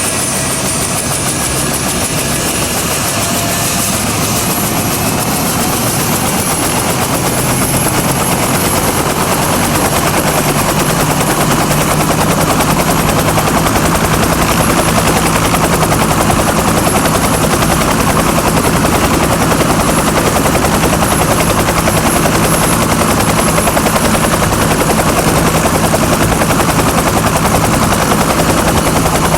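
Bell UH-1 Huey helicopter running up during start-up: its turboshaft engine whines steadily while the rotor noise grows louder over the first ten seconds or so, then holds at a steady, full level.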